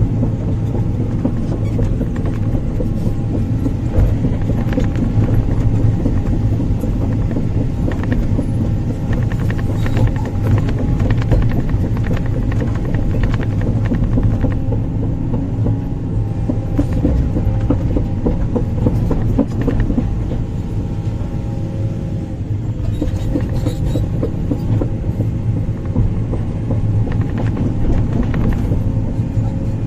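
Sumitomo 490 hydraulic excavator's diesel engine running steadily under load, with a steady whine over it and scattered short knocks and clunks from the working machine. The engine eases off slightly a little past two-thirds of the way through.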